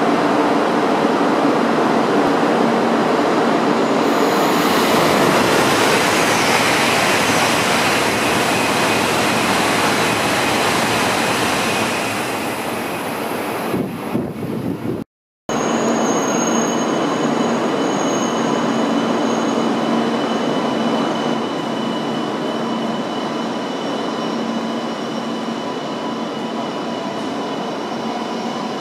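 Shinkansen train noise at a station platform: a loud rushing roar that swells about four seconds in and eases off a few seconds before a sudden short gap. After the gap comes a steadier hum with a few thin, steady whining tones as an E2-series Shinkansen rolls in alongside the platform.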